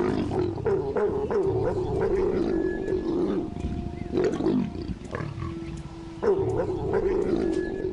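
Mating leopards growling and snarling: one long, low growl that eases off for a moment around the middle and swells again about six seconds in.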